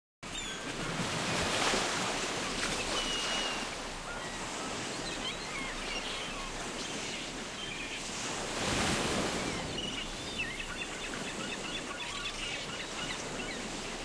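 Ocean surf washing in, swelling about a second and a half in and again near nine seconds, with birds calling high over it, more often in the last few seconds. It cuts in suddenly right at the start.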